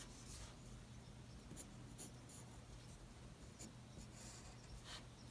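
Faint scratching of a 2B graphite pencil sketching on paper, in a few short strokes, the clearest near the end.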